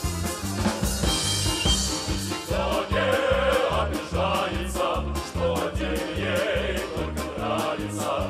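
Russian folk-instrument band playing an upbeat instrumental passage with a steady beat: plucked domras and balalaikas, bayan accordions and a drum kit.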